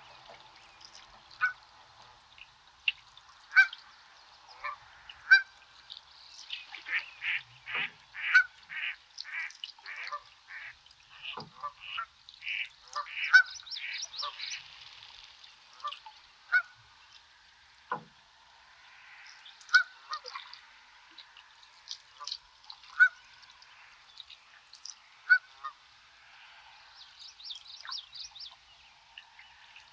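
Birds calling across open water, with a run of about a dozen repeated calls, roughly two a second, in the middle, and single calls and chirps scattered around it. Short sharp ticks come every second or two.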